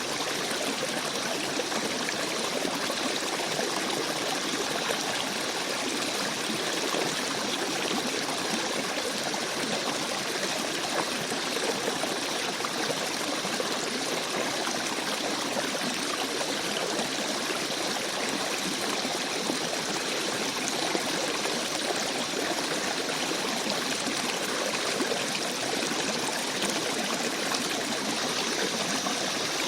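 Shallow forest stream babbling and trickling over rocks, a steady, even rush of running water.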